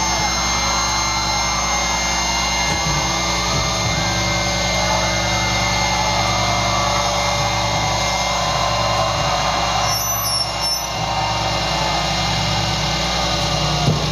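Electric guitars and amplifiers left droning and buzzing with feedback at the end of a rock set, with a crowd cheering and shouting over it. The noise dips briefly about ten seconds in.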